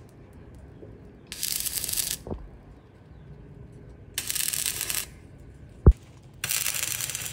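Stick-welding arc crackling in three short bursts of about a second or less each as short tack welds are laid on a square steel tube against a steel post. A single sharp knock comes shortly before the third burst.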